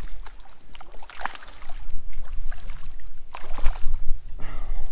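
Hooked barramundi thrashing and splashing at the water's surface right beside the boat, a run of irregular splashes of varying strength.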